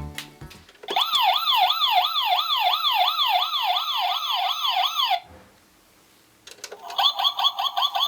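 Toy playset's electronic siren sound effect from a small speaker, a fast repeating up-and-down wail of about three sweeps a second. It stops after about four seconds and, after a brief pause, a siren starts again near the end.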